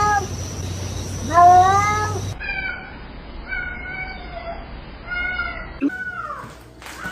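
Domestic cat meowing over and over, about five or six meows, each gliding up and then down in pitch.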